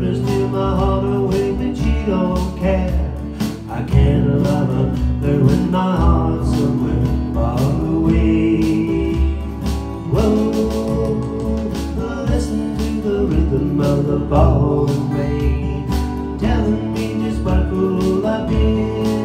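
Acoustic guitar strummed in a steady rhythm, with a man singing along into a microphone.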